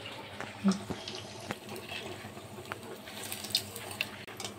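Pua batter frying in hot oil in a metal kadhai: a steady sizzle with small crackles. A few light clicks come from a slotted metal spoon against the pan, the sharpest about a second in.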